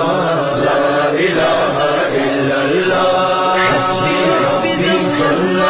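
Devotional Islamic chanting in a man's voice, a slow melody of drawn-out notes that glide from one pitch to the next.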